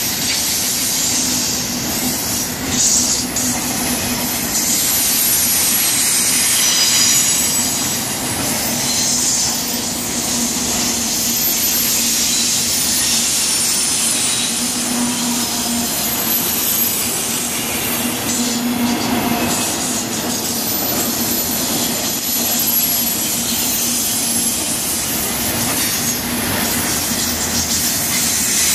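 Intermodal freight cars carrying truck trailers rolling past close by: a steady loud rumble and rush of steel wheels on the rails, with a high-pitched wheel squeal over it.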